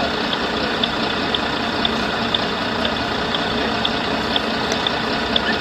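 RC model fire engine running, with its water pump going: a steady hum and hiss with a faint, regular tick about twice a second.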